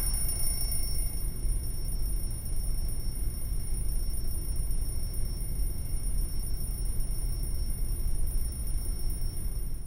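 A steady low rumble with faint, thin, high-pitched whining tones above it, cutting off at the end.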